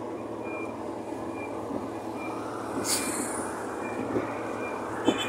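Steady road traffic noise, with a short hiss about three seconds in.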